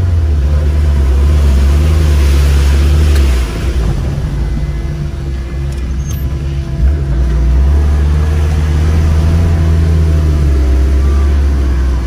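Off-road vehicle engine running loud and low. It drops back about three and a half seconds in and picks up again a few seconds later.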